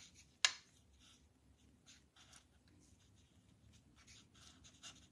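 Stampin' Blends alcohol marker tip stroking over cardstock while leaves are coloured in: faint, short scratchy strokes. One sharp click about half a second in.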